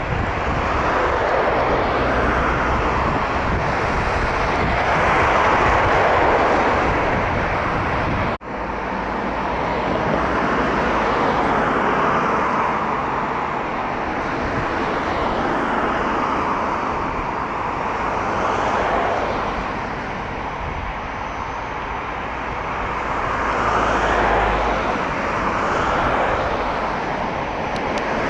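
Airbus A320neo airliner's CFM LEAP-1A turbofan engines: a steady jet roar that slowly swells and eases, broken by a brief sudden drop about eight seconds in.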